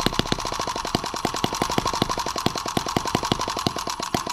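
M17B miniature single-cylinder carbureted model engine running at a low idle: a rapid, even ticking of its firing strokes and valve gear, with the ticks spacing out a little near the end. It is being idled down lower than it readily holds.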